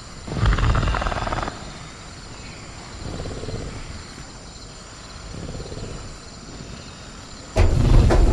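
Designed velociraptor sound effect: a loud raspy growl about half a second in, two fainter growls after, and a loud, sudden growl starting near the end, over a faint steady chirring of crickets.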